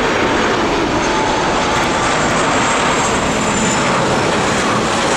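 Jet engines of an Airbus A330-200 airliner: a loud, steady rush of jet noise with faint whining tones on top.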